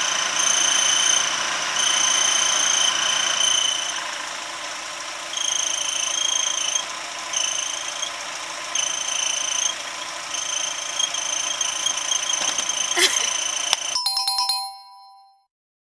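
High-pitched, cricket-like chirping from the engine bay of a running Eunos Roadster, coming in repeated bursts over the engine noise. It is an abnormal noise near the alternator, but the alternator itself checked out fine. It ends with a short rattle of clicks and a brief chime-like tone.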